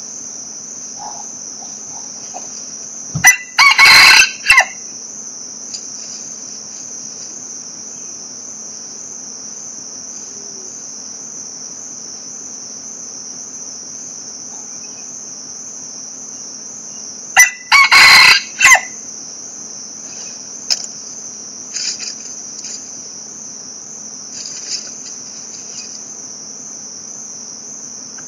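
A rooster crowing loudly twice, about fourteen seconds apart, each crow lasting about a second and a half, over a steady high-pitched insect drone. A few fainter short calls come later.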